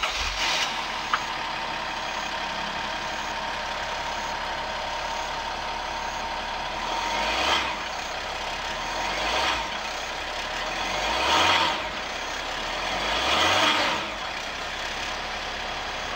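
Mercedes-Benz E320 CDI's 3.0-litre V6 turbodiesel heard at the tailpipe, idling with a noisy note. About halfway through it is revved four times, roughly two seconds apart, each rev rising and dropping back to idle. The exhaust stays surprisingly quiet under throttle.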